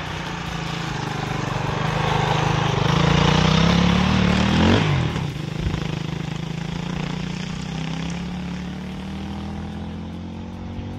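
Suzuki RMX 450Z single-cylinder four-stroke enduro engine riding past close by. It gets louder as it approaches, drops sharply in pitch about four and a half seconds in as it goes by, then runs on, slowly fading.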